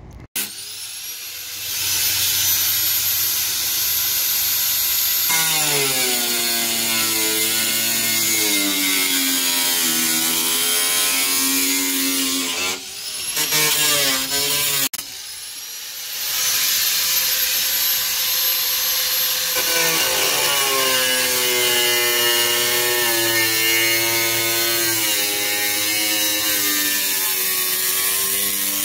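Angle grinder cutting into a car's steel floor pan. The motor spins up with a rising whine, and its pitch sags and recovers as the disc bites. It drops off about halfway through, then spins up and cuts again.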